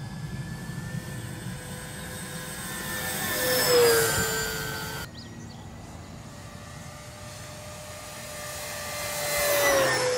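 Dynam B-26 Marauder RC warbird's twin electric motors and propellers whining as it makes two fast passes. Each pass gets louder and the pitch drops as the plane goes by, once about four seconds in and again near the end.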